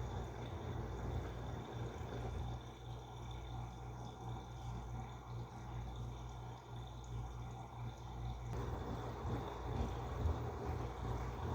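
Washing machine running, with water sloshing over a steady low hum; the water noise grows louder about eight and a half seconds in.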